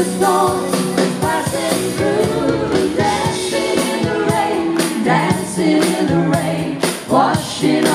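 Live pop band performance: sung vocals over a full band with a steady drum beat, recorded from among the audience.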